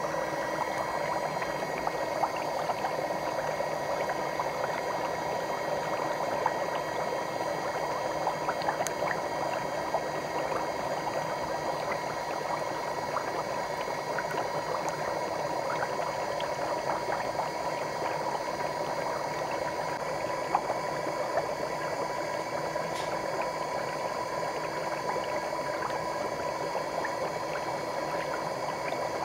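Equate electric bubble foot spa running: a steady motor hum under water bubbling and churning around the feet, with many small pops and ticks of bursting bubbles.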